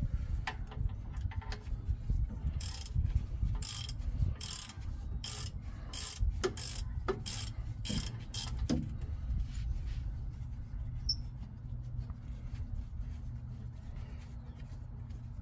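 Socket ratchet clicking in a run of short strokes as a rear brake caliper bracket bolt, already broken loose, is backed out. The clicking falls off after about nine seconds, leaving a steady low hum.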